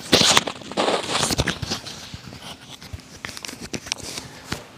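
Rustling and crackling handling noise close to the microphone, loudest in the first second and a half, followed by scattered sharp clicks and softer rustles.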